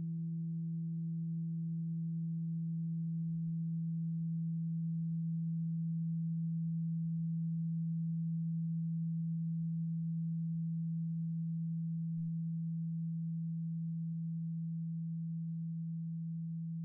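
Steady low meditation tone holding one pitch, with a fainter higher overtone that fades away over the first several seconds; it softens slightly near the end.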